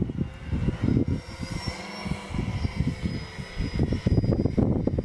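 Small electric motor and propeller of a radio-controlled foam model jet whining faintly and steadily as it flies, its pitch bending slightly about two seconds in. Gusty wind rumble on the microphone is the loudest sound.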